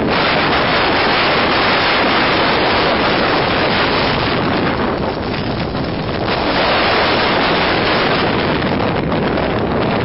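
Blizzard wind of about 24 m/s with gusts over 40 m/s blasting the microphone: a loud, steady rush of wind noise that eases slightly about five seconds in and then picks up again.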